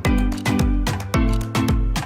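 Upbeat background music with a steady, bouncy beat and a prominent bass line.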